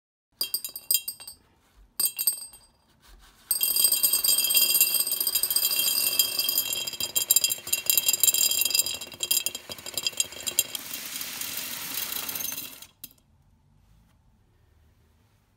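Dried red kidney beans being poured into a glass jar, clattering and clinking against the glass. A few single clinks come first, then a dense stream of rattling that runs for about nine seconds and stops sharply.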